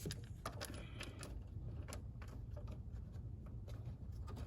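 Scattered light clicks and small rattles of engine-bay parts being handled, at irregular intervals, over a steady low hum.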